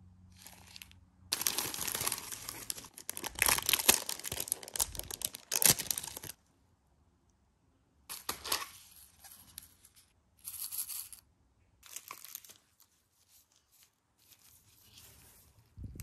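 Plastic packaging and thin disposable plastic gloves crinkling and rustling as the items are handled. A long loud stretch begins about a second in and lasts about five seconds, then come four shorter bursts.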